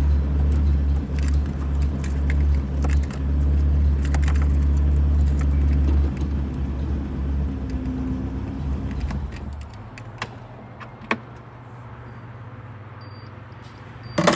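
A 1992 VW Voyage 1.8 four-cylinder engine running steadily, then switched off about ten seconds in. A few light clicks follow, and there is a sharp knock near the end.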